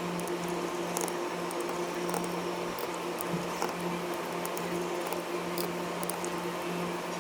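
Steady low electrical hum, with light, scattered clicks and small scraping sounds of handling on top.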